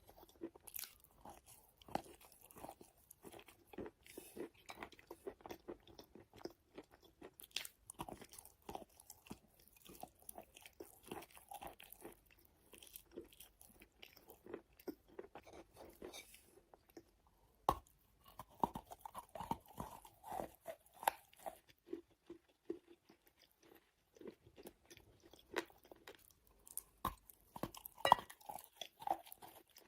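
Wet chalk being bitten and chewed close to the microphone: soft, moist crunches and chewing clicks in an uneven run, with a few sharper, louder bites, the loudest about two thirds of the way in and near the end.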